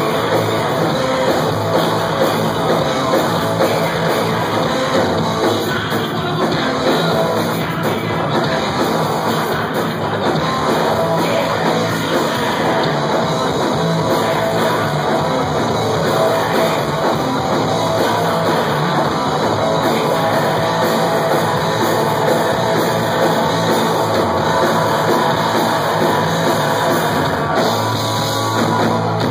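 Hardcore punk band playing live: shouted vocals over distorted electric guitars, bass guitar and a drum kit, loud and continuous.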